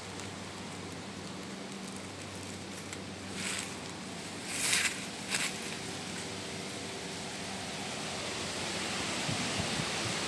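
Short rustles of grass and dry leaves as mushrooms are pulled from the ground by hand, three brief ones between about three and five and a half seconds in, over a steady outdoor hiss.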